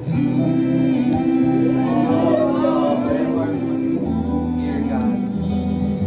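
Acoustic pop duet: male and female voices singing held notes over acoustic guitar.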